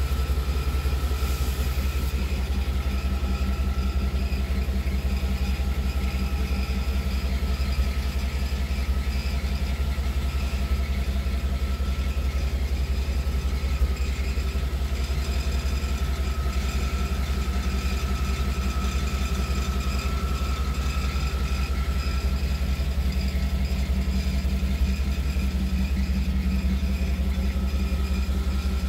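An engine idling steadily: an even low rumble with a fine, regular pulse that does not change.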